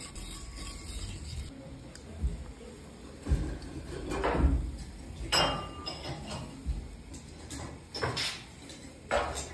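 Chopsticks and a wooden spatula tapping and knocking on a shallow iron sukiyaki pan as beef slices are laid in. There are about seven short, sharp clicks and knocks spread through.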